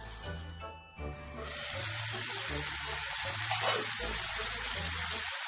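Background music with a steady bass line. About a second in, a steady hiss starts underneath and carries on, the sound of cooking in the kitchen.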